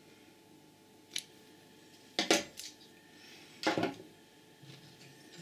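Clinks and knocks of a stainless steel ruler and circuit board being handled and set down on a wooden desk: a light click about a second in, a louder clatter a little after two seconds, and another just before four.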